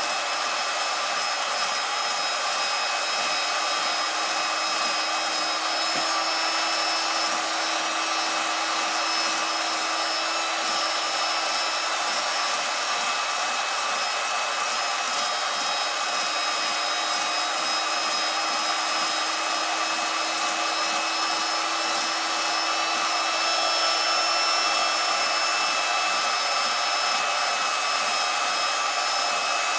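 A motor running steadily: an even whir with a few held tones.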